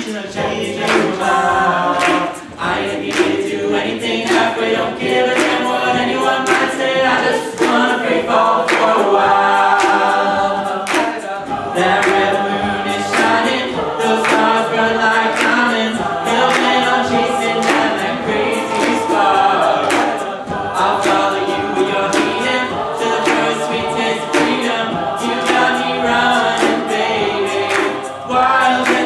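Mixed-voice a cappella group singing a country-pop song, a male lead into a microphone over the group's sung backing harmonies, with a steady percussive beat under the voices.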